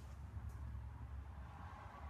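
Low, steady rumble of handling noise from a handheld camera being carried and turned, with one faint click about half a second in.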